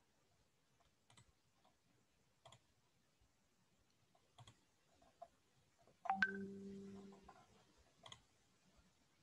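Faint, isolated clicks at a computer, one every second or two. About six seconds in, a sharp knock is followed by a low steady tone that fades out over about a second.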